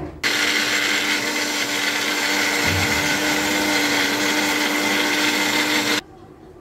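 Small personal bullet-style blender running steadily as it grinds green chillies and onion to a paste. It starts abruptly just after the start and cuts off suddenly about six seconds in.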